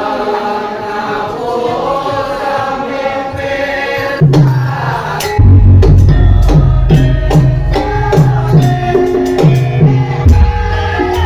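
Live Javanese gamelan music with singing. About four seconds in, sharp percussion strokes come in. From about five seconds, loud drums set a steady pulsing beat under the melody.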